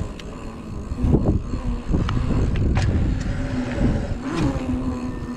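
Hardtail mountain bike rolling over asphalt during manuals: tyre roar and wind on the microphone, with several sharp clicks and knocks from the bike. A steady low hum comes in about three and a half seconds in.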